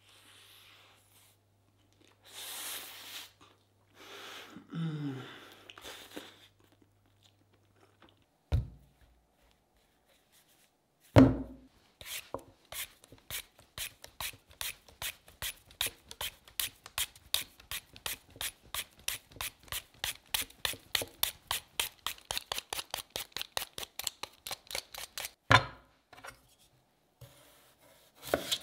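A handheld Y-peeler scraping strips of skin off a sweet potato in quick, even strokes of about four a second for over ten seconds. Before that come a crunchy bite and chewing of a burger and a couple of sharp knocks on the cutting board. Near the end a knife begins cutting through the potato.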